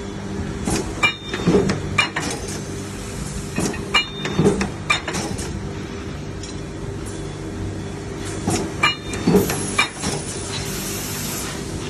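Hot-forging press running with a steady machine hum, with three bursts of metal knocks and clanks about four seconds apart as it cycles. Near the end a high hiss sets in, starting with a short falling whistle.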